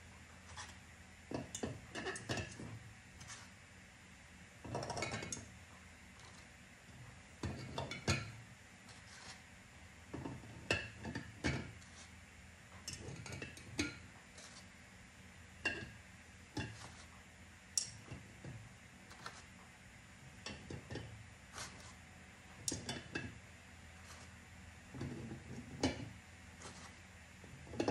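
Eggs being set one by one into a large glass jar: irregular light clinks and knocks of eggshells against the glass and against each other, every second or two.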